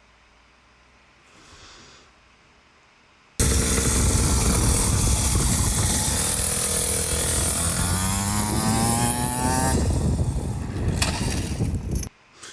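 Dirt bike engine running, revving up with its pitch rising as it accelerates, under a loud rushing noise. It starts suddenly a few seconds in and cuts off abruptly near the end.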